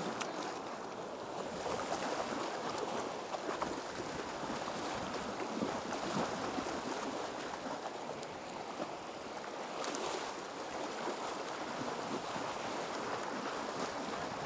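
Shallow surf washing and breaking around the camera: a steady rushing of waves and foam.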